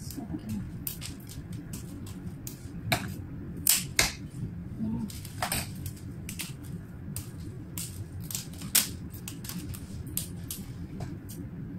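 Irregular sharp snaps and clicks of leaves being stripped and snapped by hand off fresh flower stems, a few louder snaps among many lighter ones, over a low steady background rumble.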